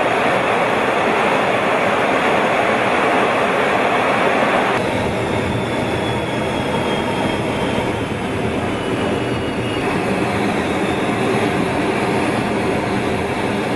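Steady noise of a fighter jet's engine and rushing air, heard inside the cockpit in flight. The sound changes abruptly about five seconds in, and a faint high whine that falls slightly in pitch follows for a few seconds.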